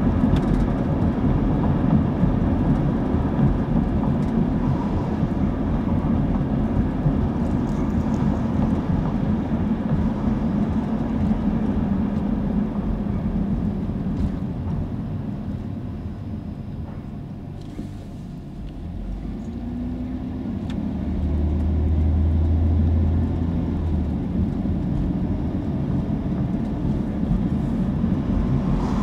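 Car driving, heard from inside the cabin: a steady rumble of road and engine noise. About halfway through it dies down for a few seconds as the car slows at a stop sign, then it rises again with a low hum as the car picks up speed.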